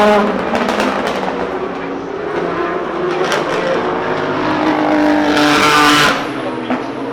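Race car engines running, with one car passing loud and close about five seconds in before the sound drops away suddenly.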